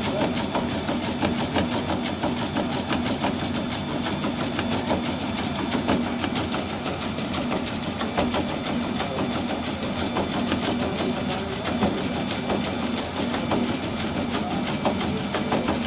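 Treadmill running steadily with a fast, continuous clatter of a small two-legged robot's feet striking the moving belt, over a steady motor hum.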